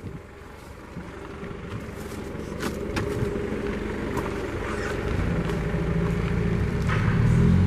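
A motor vehicle's engine running, growing steadily louder as it comes closer, with a few light clicks and crinkles over it.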